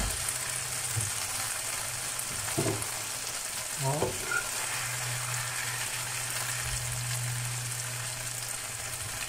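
Chicken and vegetables in sauce sizzling in a nonstick frying pan over a gas flame, with a metal spoon stirring the food about halfway through. A steady low hum joins from about halfway.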